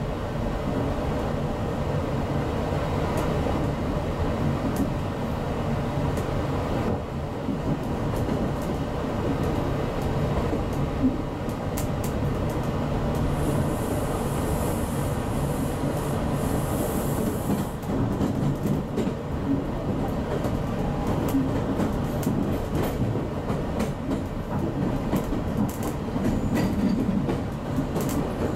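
GO Transit commuter train in motion, heard from inside the coach: a steady rumble of wheels on the track with scattered clicks over the rail joints. A high hiss comes in for a few seconds about halfway through.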